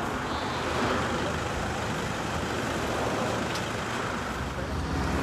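Steady road traffic noise from a highway, with a vehicle's engine growing louder near the end as it approaches.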